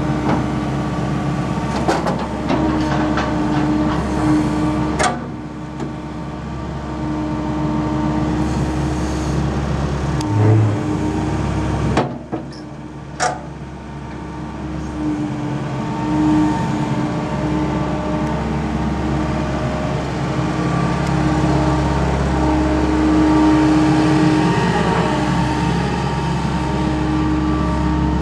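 Caterpillar M315C wheeled excavator's diesel engine running steadily, with a whining tone that comes and goes as the machine works under load, and a few sharp metallic clanks.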